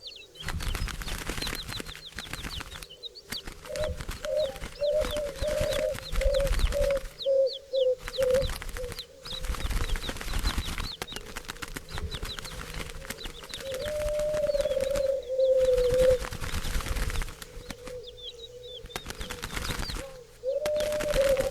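Birds calling: a run of short, low cooing notes, later two longer drawn-out low notes, over many quick high chirps and a steady rustling.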